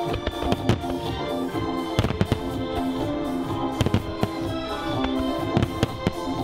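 Aerial firework shells bursting with sharp reports at irregular intervals, over the display's music soundtrack.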